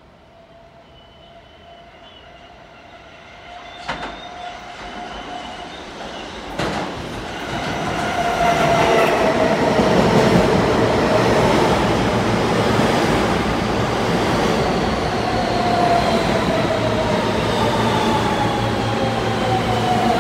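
R160B subway train pulling into the station. The rumble of its wheels on the rails grows loud as it comes in, with two sharp clacks on the way. A whine glides slowly down in pitch as the train slows alongside the platform.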